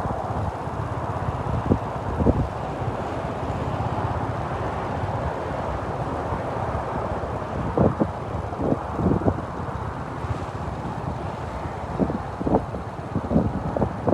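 Wind buffeting the microphone over a steady rush of surf, with a few short gusty thumps, most of them in the second half.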